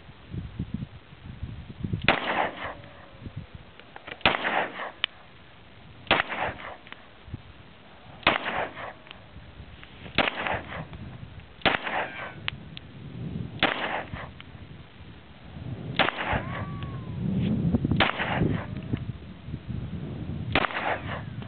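Glock 19 9mm pistol fired at a slow, steady pace: about ten single shots, roughly two seconds apart, each a sharp crack with a short ringing tail.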